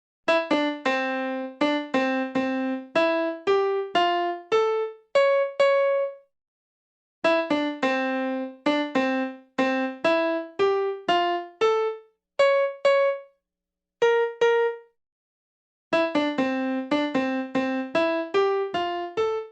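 Electric piano playing a simple melody of short, quickly decaying notes in three phrases, with brief silent pauses between the phrases; the notes climb in pitch within each phrase.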